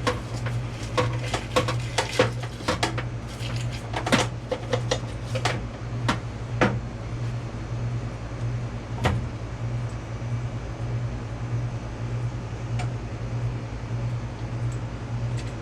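Metal clinks and knocks of tools and air-compressor parts being handled during teardown, many in quick succession for the first seven seconds, one more a couple of seconds later, then a few faint ticks, over a steady low hum.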